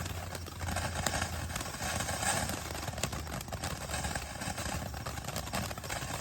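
Firework fountain burning: a steady rushing hiss of sparks with dense crackling throughout.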